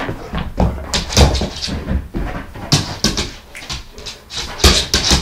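A Doberman and a miniature schnauzer at play: irregular scrabbling and thuds of running paws and claws on a hardwood floor, mixed with dog noises.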